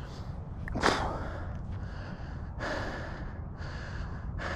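A winded runner's heavy breathing close to the chest-mounted microphone: a sharp sniffing inhale about a second in, then a run of loud breaths, each under a second long, as he recovers from running. A steady low wind rumble on the microphone lies underneath.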